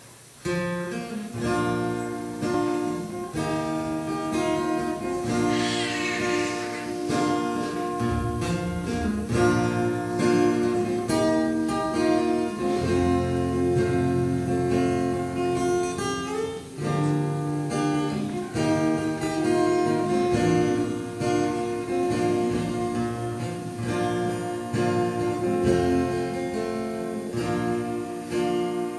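Acoustic guitar strummed and plucked, playing the accompaniment of a Christmas song.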